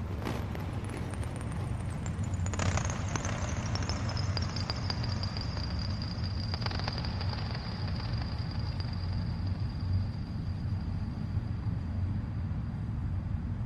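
Electronic ambient drone music. A dense, low rumbling drone runs under a high whistling tone that slides down over the first few seconds and then holds steady, with crackling noise in the middle of the passage.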